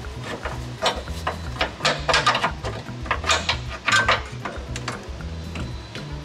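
Hard clinks and rattles of the L5P Duramax's fuel filter housing and its mounting bracket being pushed apart and pulled free, a busy run of them through the first four and a half seconds, over background music with a steady beat.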